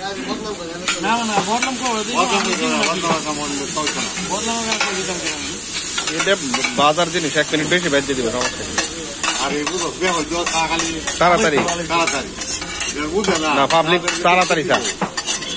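Chopped onion and chili sizzling on a large flat iron griddle while two steel spatulas scrape, stir and clack against the hot surface again and again.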